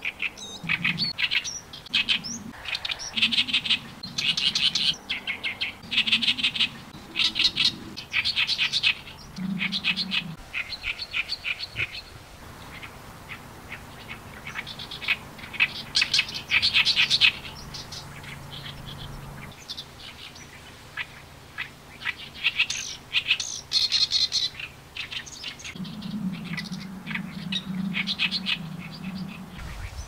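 Oriental reed warbler singing its harsh, gravelly song: fast strings of rasping 'gya-gya' notes mixed with higher 'pii' notes, in bursts with short pauses between phrases.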